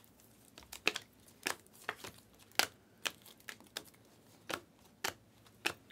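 Panini Prizm basketball cards flicked one by one off a hand-held stack, each slide giving a short, crisp snap, about a dozen at an uneven pace.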